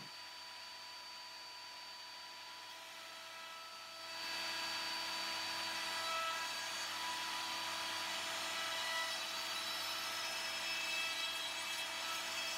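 Table-mounted router running at speed with a cove bit, a steady high whine; about four seconds in the bit starts cutting the edge of a wooden board, and the sound grows louder and noisier.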